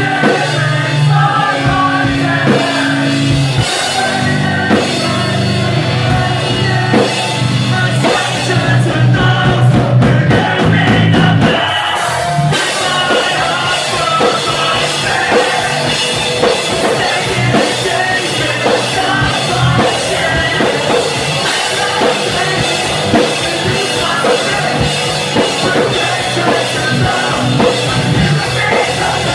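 Pop-punk band playing live and loud: electric guitars, drums and singing. The low held bass notes give way to a busier section about twelve seconds in.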